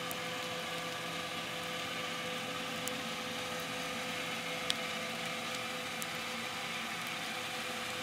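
The MSC Grandiosa cruise ship's propellers heard underwater through a hydrophone: a steady hum of several held tones over a hiss, with a few sharp clicks, the loudest about halfway through.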